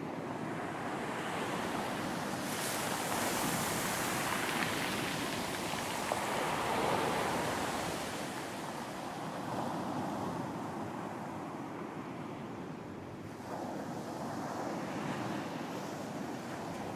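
Ocean surf on a beach: waves breaking and washing in, swelling up about two seconds in, easing off past the middle and building again a little later.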